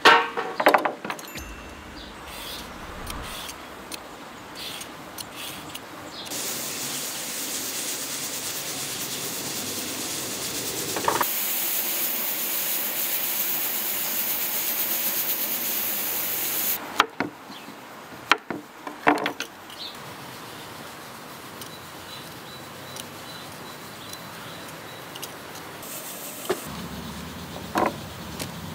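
Pressure cooker venting steam through its valve: a steady hiss that starts a few seconds in, grows louder midway, then cuts off suddenly. Scattered knocks and clicks come before and after it.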